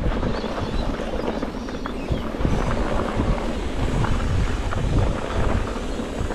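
Wind buffeting the microphone: a rough, uneven rumble with a rushing haze over it.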